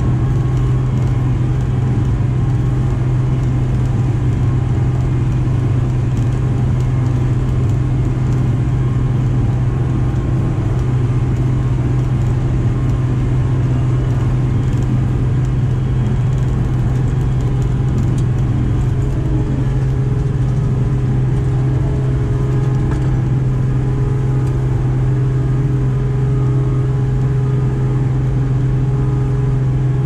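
Farm vehicle's engine running steadily with a deep, constant hum.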